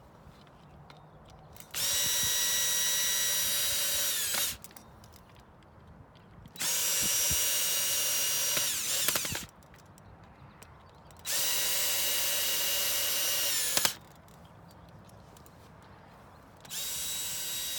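Power drill/driver running in four separate bursts of two to three seconds each, driving the four screws of an umbrella's bottom rib hub back down; each burst is a steady motor whine that winds down in pitch as the trigger is released.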